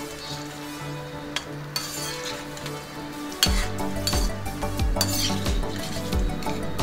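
Eggplant koftas deep-frying in a wok of hot oil, sizzling, stirred and scooped with a perforated steel skimmer that scrapes and clinks against the pan. Background music plays throughout, with a steady beat coming in about halfway.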